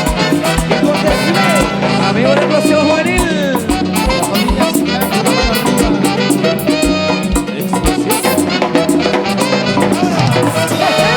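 Latin dance music in a salsa/cumbia style, with brass and a steady beat, played loud.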